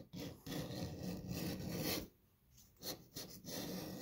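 A coin scraping the coating off a scratch-off lottery ticket in rapid rubbing strokes. It pauses briefly about halfway, then starts again.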